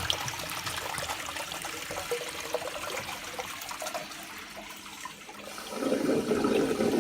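Old American Standard urinal flushing: a steady rush of water that swells louder again near the end.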